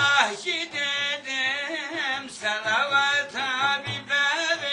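Male voice singing a Turkish Sufi ilahi (devotional hymn), the held notes wavering with vibrato, over a light, steady drum beat.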